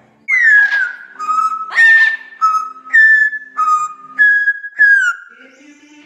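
Amazon parrot whistling a tune: about eight clear notes stepping back and forth between a higher and a lower pitch, several starting with a quick downward slide.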